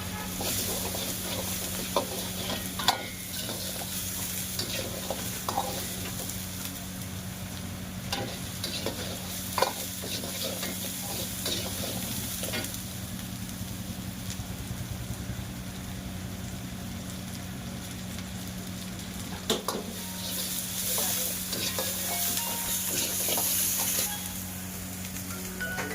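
Chicken frying in hot oil in a pan, sizzling steadily, with a utensil stirring and knocking against the pan now and then. A steady low hum runs underneath, and the sizzle grows louder for a few seconds about twenty seconds in.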